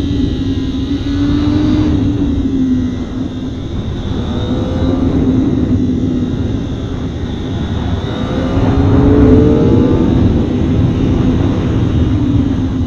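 Kawasaki ZX-25R 250cc inline-four engine running at part throttle on a twisty descent, over steady wind and road rush. Its note dips, then climbs about eight to nine seconds in as the throttle opens and the bike picks up speed.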